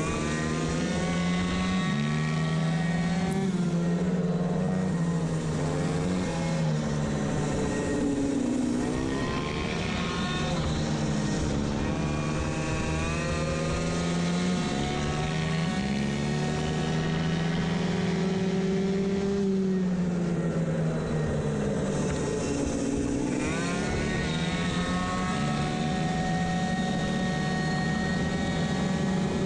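Two-stroke racing moped engine with a variator running hard around the track, its note falling on each corner entry and climbing again on the exit, several times over.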